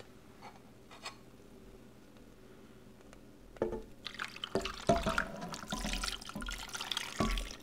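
Thin gravy mixture poured from a metal bowl over raw chicken breasts in a crockpot, splashing and dripping, starting about halfway through, with a few light knocks along the way.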